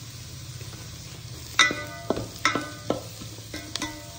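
Vegetables stir-frying in a pan, with a metal spoon stirring them. From about one and a half seconds in, the spoon knocks against the pan about six times, and each knock rings briefly.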